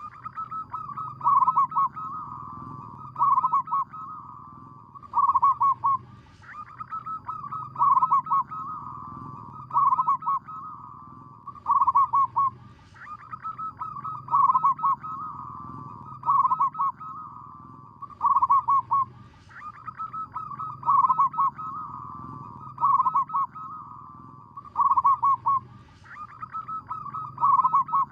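Zebra dove (perkutut) cooing: its rhythmic, stuttering call is repeated about every two seconds.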